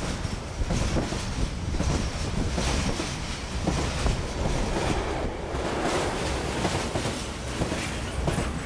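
Freight train wagons, carrying lorry semi-trailers and tank cars, rolling past close by: a steady rush of wheels and air with a constant clatter of wheels over the rails.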